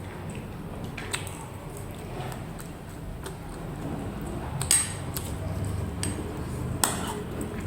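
Eating utensil clinking against a dish while eating: three short clinks, one about a second in, a louder one just before five seconds and another near seven seconds.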